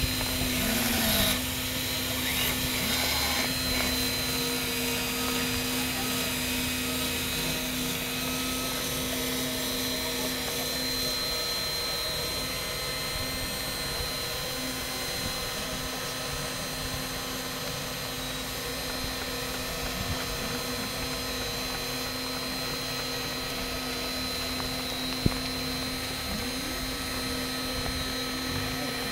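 Radio-controlled scale Tatra 813 8x8 model truck's electric drive motor and gearbox whining steadily as it crawls up a steep rocky slope, with one sharp click near the end.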